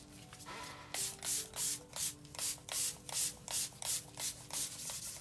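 Hand-pumped spray bottle misting water onto a wet painted canvas, in a quick steady run of short hissing squirts, about three a second, starting about a second in.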